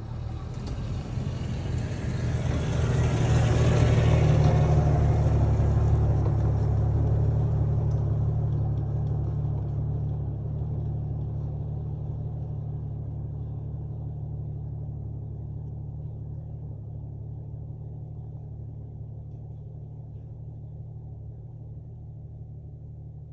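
A Jeep drives past close by on a dirt track and away: engine and tyre noise loudest about four seconds in, then a low, steady engine hum that fades slowly as it goes.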